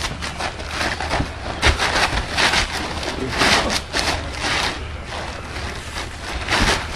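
Plastic tarp on a backyard wrestling ring rustling and scuffing in several noisy bursts as wrestlers get up and grapple on it, over a steady low rumble.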